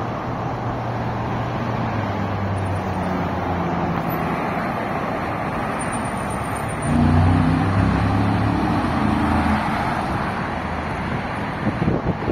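Traffic on a wide multi-lane city road: steady tyre and engine noise, with one car engine growing louder about seven seconds in and easing off a couple of seconds later.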